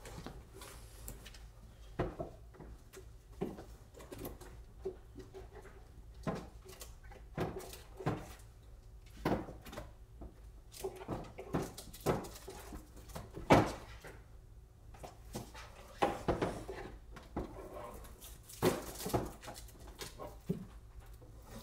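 Irregular knocks, clicks and rustles of someone handling craft supplies, getting out and opening a new cutting mat, over a faint steady low hum.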